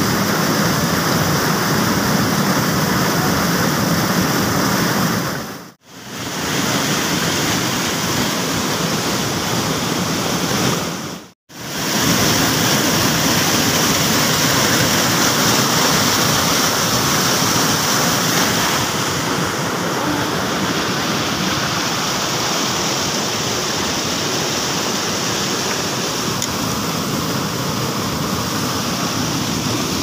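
Fast river water rushing and churning white over rocks by a waterfall: a steady, loud rush of noise that dips out briefly twice, about six and eleven seconds in.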